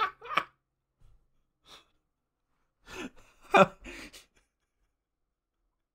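A person laughing in short breathy gasps: a couple at the start, then a few more with a brief voiced laugh about three seconds in, quiet in between.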